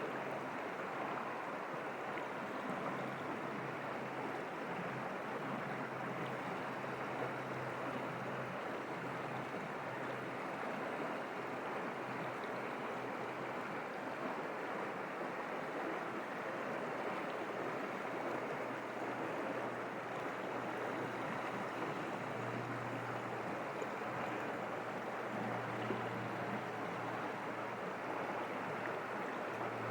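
Forest stream running steadily over rocks, an even rush of flowing water.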